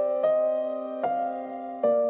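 Slow, gentle background music, with a new note struck about every second and each left to ring.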